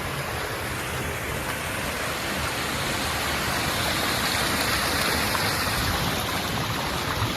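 Stream water rushing over a rocky waterfall: a steady rush that swells slightly in the middle.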